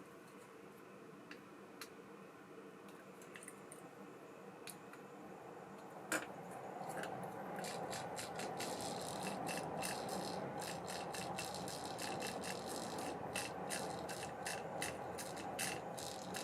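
Mechanism of an ABU Ambassadeur 5500C direct baitcasting reel being worked by hand: a few light clicks, then a sharp click about six seconds in, followed by a continuous mechanical rattling and scraping run with many small clicks.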